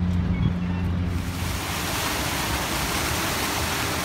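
Public fountain's water jets splashing into a stone basin: a steady rushing hiss that sets in about a second in, over a low hum at the start.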